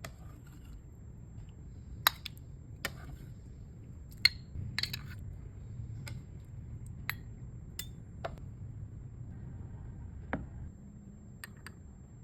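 Kitchenware clinking and knocking: about ten sharp, separate clinks and clicks at irregular intervals, over a low steady hum.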